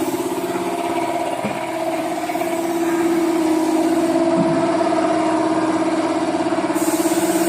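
A motor running steadily, a pitched hum with a fast, even pulsing.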